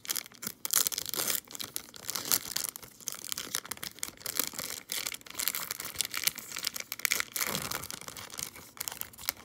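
Foil wrapper of a trading-card pack being torn open and crumpled by hand: a dense crackling rustle that thins out near the end.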